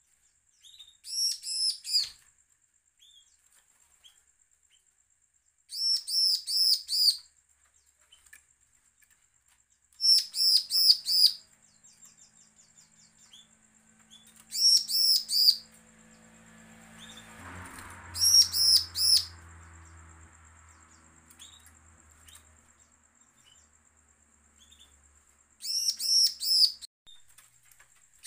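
Bar-winged prinia (ciblek) singing. It gives six short, loud phrases, each a rapid run of four or five high, sharp notes, one about every four to five seconds, with a longer pause near the end.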